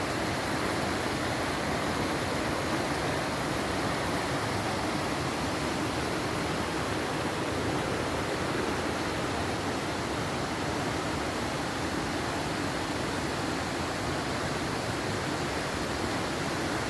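Steady rushing of a waterfall: an even, unbroken roar of falling water with no change in level.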